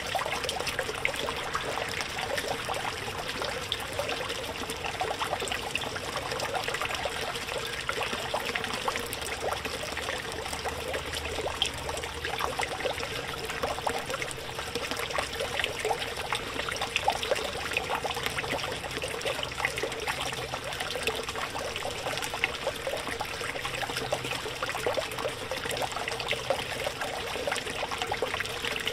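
Small backyard pond fountain: water from a submerged pump's jet and a thin stream from a frog-shaped spitter splashing and trickling back into the pond. A steady, unbroken run of small splashes with a faint steady hum underneath.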